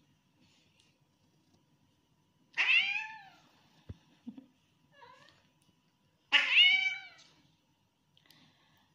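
Long-haired domestic cat meowing: two loud, drawn-out calls about a second each, falling in pitch, with a fainter short call between them. These are the meows of an annoyed cat.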